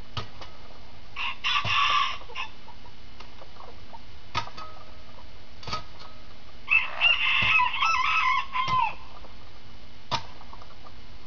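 A long stick knocking against a tree, four sharp taps spread apart. Between them come two loud, shrill calls, the second one longer, which are the loudest sounds.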